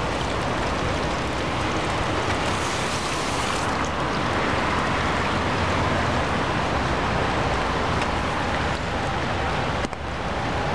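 Steady rain falling and stormwater runoff running along a street gutter, a continuous watery hiss, with a brief dip near the end.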